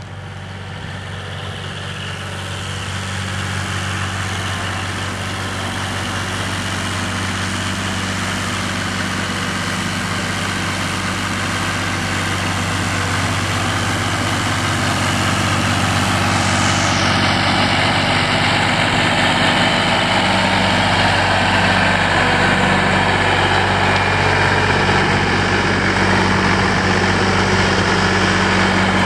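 Massey Ferguson 231S tractor's diesel engine running steadily, growing louder over the first few seconds and then holding an even note.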